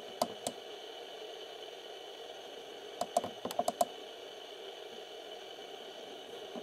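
Plastic push-buttons on an alarm clock radio clicking as they are pressed: two clicks near the start, then a quick run of about six clicks around three seconds in, over a steady background hiss.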